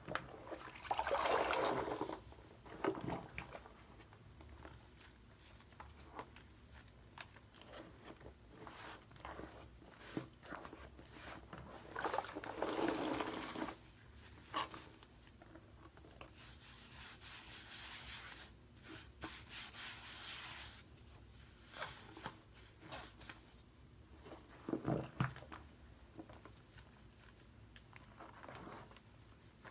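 Wet squishing and crackling of shaving-cream foam and a soaked sponge being squeezed and kneaded by hand in a sink. It comes in irregular spells, with louder squeezes about a second in, around the middle, and a few seconds before the end.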